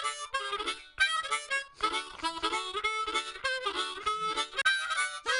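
Background music: a lively tune of short, quick notes on a reedy instrument, changing pitch several times a second.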